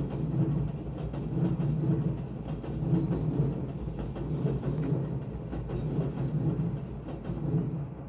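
Keio Line electric commuter train passing over a level crossing, its wheels rumbling in a regular beat as the cars go by; the sound falls away near the end as the last car clears.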